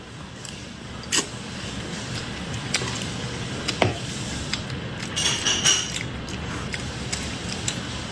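Close-miked eating: wet chewing of a spoonful of food, with a few sharp clicks and a brief clinking of a metal spoon against the bowl a little after five seconds in.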